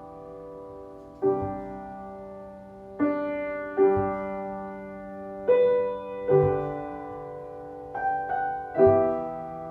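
Piano playing a slow introduction: chords struck every second or so, each left to ring and fade before the next.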